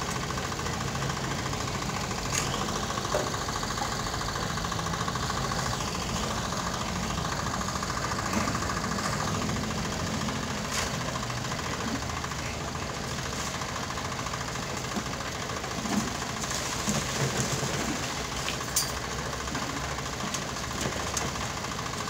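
Small engine of concrete-pouring machinery running steadily with a fast, even pulse, with a few short knocks and clanks over it in the second half.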